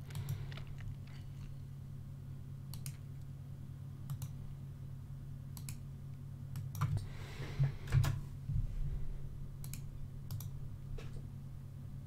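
Sparse clicks of computer keyboard keys, spaced a second or more apart, over a steady low hum.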